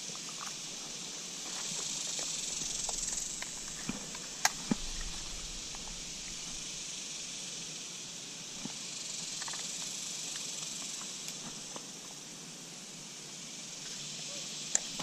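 Steady high-pitched insect chorus, swelling and easing a little, with a few faint clicks and taps over it.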